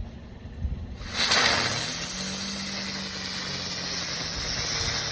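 A TNT ground bloom flower firework catches about a second in and spins on the ground, giving off a loud, steady hiss of burning sparks.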